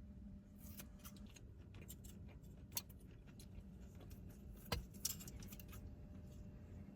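Faint low rumble with scattered light clicks and clinks; the sharpest comes a little before the middle, and a small cluster follows shortly after.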